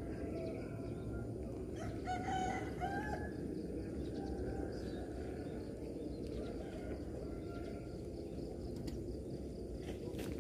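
A rooster crows once about two seconds in, over a steady low background rumble. Fainter bird chirps are heard now and then.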